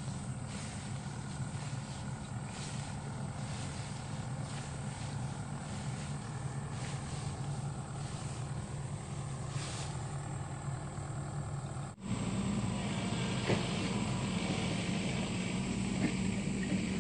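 SANY SY75 long-arm excavator's diesel engine running steadily. About twelve seconds in, the sound cuts off for an instant and comes back louder.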